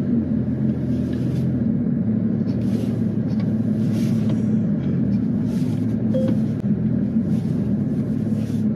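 Porsche 911 GT3's flat-six engine running steadily at low revs, heard from inside the cabin.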